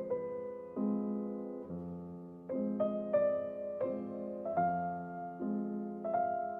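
Background music: slow, gentle piano, a new note or chord struck about once a second and left to ring and fade.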